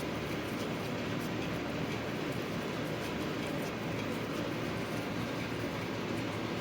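A steady, even rushing noise, with faint light ticks scattered through it.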